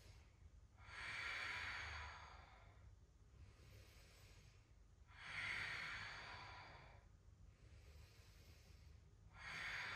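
A person's slow, deep breaths while holding a yoga bridge pose: three faint, drawn-out breaths about four seconds apart.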